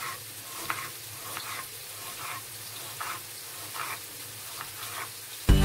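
Knife cutting through an onion onto a plastic cutting board, a short tap about every second, over the steady sizzle of ground meat frying in a pan. Acoustic guitar music starts right at the end.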